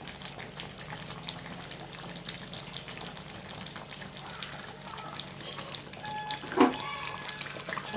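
Tamarind fish curry simmering on a low flame in a clay pot: a steady, soft bubbling hiss, with a few light clicks and one louder scrape near the end.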